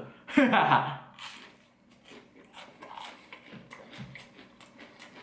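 Crunchy chewing of a deep-fried breaded chicken strip: a run of small crisp crunches from the breading. A short vocal exclamation comes about half a second in and is the loudest sound.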